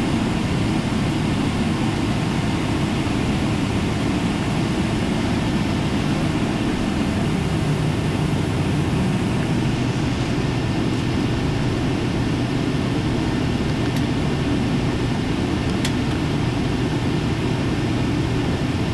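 Cabin noise inside a taxiing Boeing 777-300ER: its GE90 turbofan engines running at taxi power with the airframe rolling, a steady low-pitched noise that holds an even level throughout.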